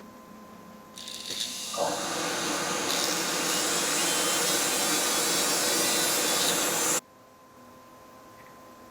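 A dental-lab machine running loudly with an even, rough rushing noise. It builds up over about a second, holds steady for about five seconds, then cuts off suddenly.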